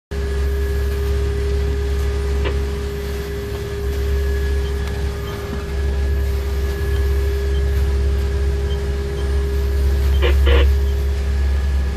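Pilot boat's engines running at a steady drone, heard from inside the wheelhouse, with a steady hum over it. A brief clatter about ten seconds in.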